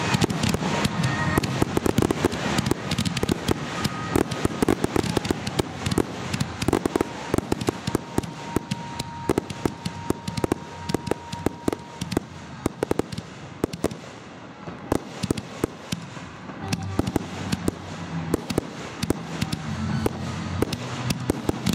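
Fireworks display: aerial shells bursting overhead amid a dense, rapid crackle of popping stars, which thins out briefly about two-thirds of the way through and then builds again.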